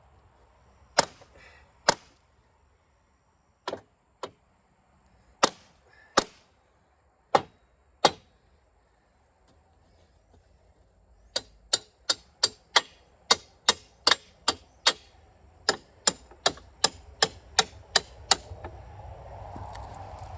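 Hammer blows: sharp single strikes, spaced out and irregular at first, then a steady run of about two to three blows a second for several seconds.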